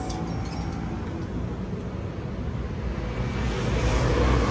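Low rumble of road traffic, swelling louder near the end as a vehicle passes.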